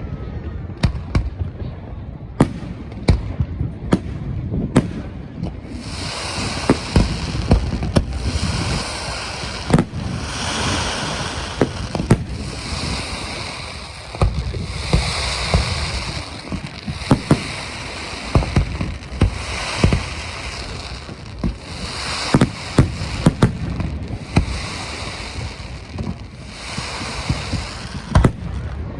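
Aerial fireworks going off: a string of sharp bangs and booms. About six seconds in, a dense crackling joins them and keeps going.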